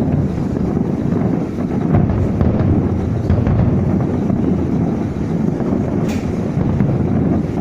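Wind buffeting the microphone: a steady low rumble throughout, with a short hiss about six seconds in.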